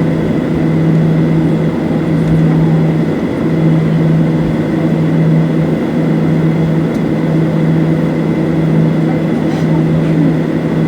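Steady cabin noise of a Boeing 737-700's CFM56-7B jet engines: a constant low drone with a thin high tone held above it.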